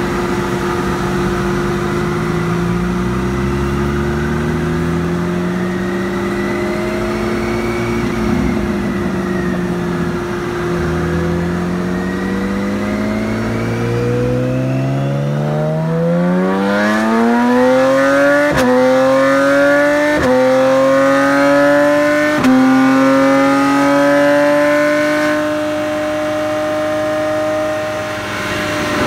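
2018 BMW K1600B's inline six running through prototype Fullsac Performance mufflers, accelerating hard with the pitch climbing, easing back about eight seconds in, then climbing again. Past the middle come three quick clutchless upshifts, each a brief break and small dip in pitch. Near the end it holds a steady note at the 130 mph speed limiter in sixth gear.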